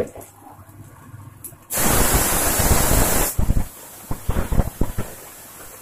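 Kangkong (water spinach) dropped into hot oil in a steel pan: a loud sizzle breaks out suddenly about two seconds in, lasts about a second and a half, then settles into uneven crackling and spattering.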